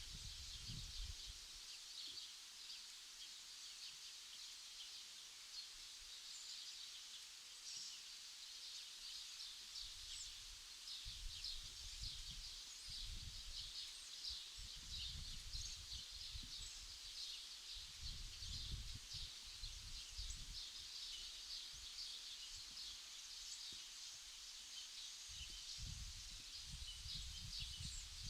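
Birds chirping and twittering in a steady, dense chorus, with gusts of wind rumbling on the microphone now and then.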